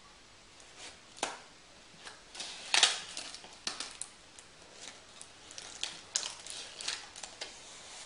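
Paper CD sleeve and cardboard packaging rustling and scraping as a CD is worked out of a cardboard box, with a string of short clicks and taps; the loudest scrape comes about three seconds in.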